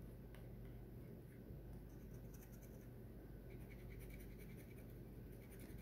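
A coin scratching the silver coating off a paper scratch-off lottery ticket: faint, quick scraping strokes that get busier after about two seconds.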